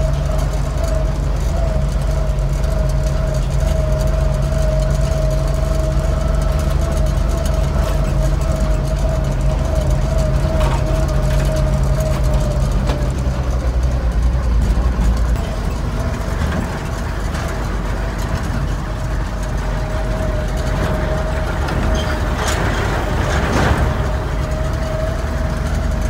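Old grain truck's engine running, heard from inside its cab, with the truck heavily loaded with soybeans. A steady whine rides over the engine, and the low engine note drops about halfway through as the truck slows.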